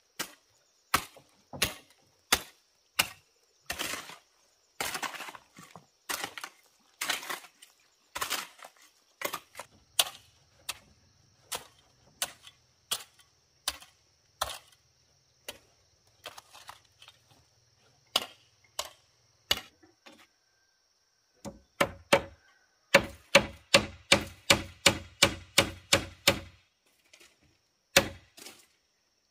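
A hoe chopping into stony dirt in repeated blows, about one a second. Near the end, a hammer strikes nails into wooden planks in a quick run, about four a second, with a ringing note.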